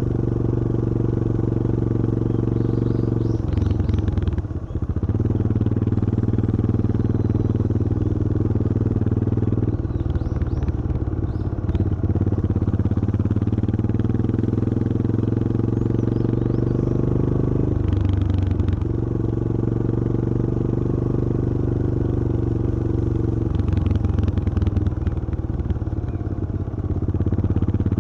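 Yamaha XT225 Serow's single-cylinder four-stroke engine running under way. It is a steady engine note that breaks and changes pitch in steps a few times.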